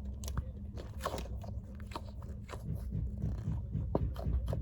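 Deflated foam squishy toy, popped, being squeezed and handled close to the microphone, giving irregular soft clicks over a low rubbing rumble.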